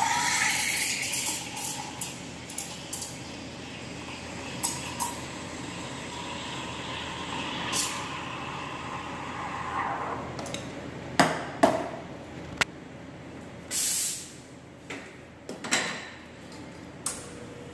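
Cimbali espresso machine's steam wand frothing milk in a metal pitcher: a steady hiss with a whistling tone that stops about ten seconds in. After that come a few sharp metallic knocks and two short hiss bursts.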